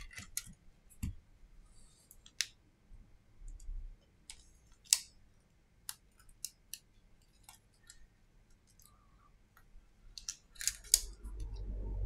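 Scattered sharp clicks and taps of a smartphone's plastic and metal parts being handled by hand. A cluster of louder clicks and a rustling, low-rumbling handling noise comes near the end.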